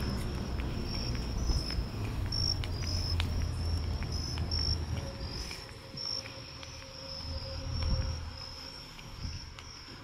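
Crickets chirping in a steady high-pitched trill that pulses throughout. Beneath them a low rumble is strong at first and drops away about halfway through.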